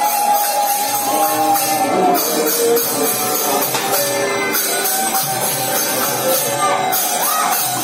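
Devotional music: jingling cymbals and drums keep up under a held melody line.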